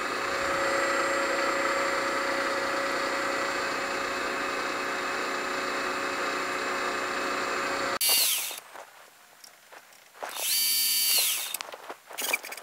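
Milling machine spindle running steadily with a whine, turning a small center drill to spot-drill port holes. The sound cuts off abruptly about eight seconds in. Two short bursts of the same whine follow, the second lasting about a second.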